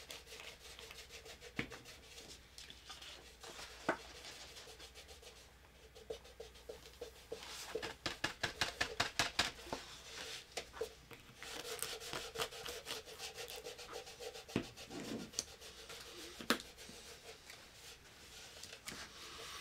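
Quiet rubbing strokes on a craft piece: a quick regular run of about five strokes a second in the middle, with scattered light taps before and after, over a faint steady hum.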